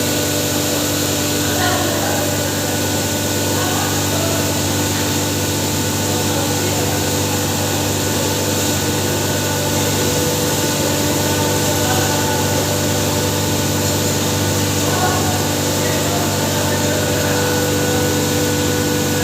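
Electric-motor-driven hammer mill for grinding maize, running steadily: a loud, constant mechanical noise with a steady hum underneath.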